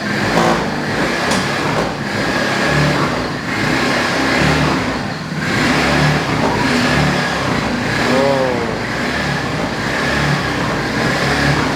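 Petrol engine of a two-seater go-kart buggy running while stationary and revved up and down in repeated blips, each lasting about a second.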